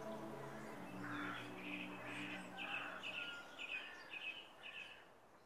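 Birds calling: a run of short chirping calls, about two a second, over held low tones that fade. The whole sound fades out toward the end.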